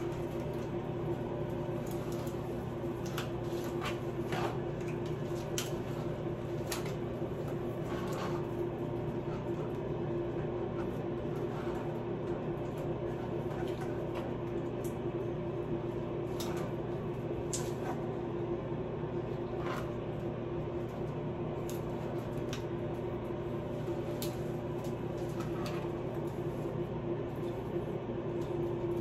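Utility knife and plastic smoothing card working vinyl wallpaper around fixture brackets: scattered small clicks and short scrapes, over a steady humming tone that lasts throughout.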